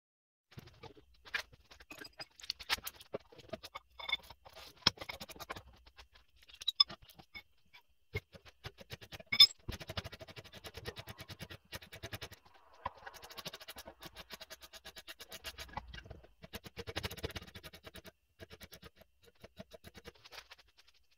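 Hand tools working on a car's rear brake caliper: scattered metal clicks and knocks, with a sharp knock about nine seconds in, then runs of rapid, even ratchet clicking.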